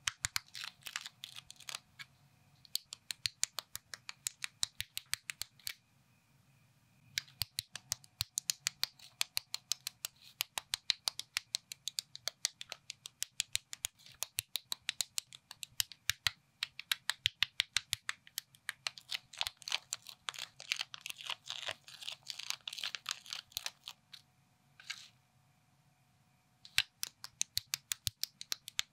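Plastic building bricks (Lego-compatible knockoff pieces) being clicked and pressed together by hand: a fast run of sharp clicks and snaps, broken by two short pauses.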